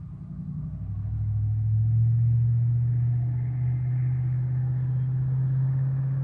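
A motor vehicle's engine running close by: a low, steady rumble that grows louder over the first two seconds, then holds.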